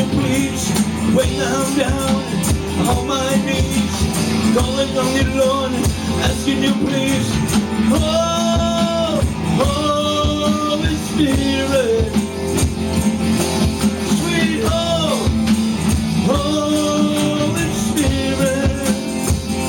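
Song playing: music with a singing voice, several held notes standing out in the middle and again near the end.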